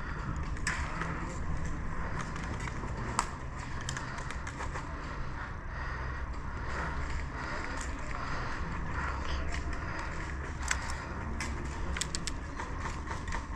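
Rustling, crackling movement noise over a low rumble, broken by scattered sharp clicks; the loudest click comes about three seconds in.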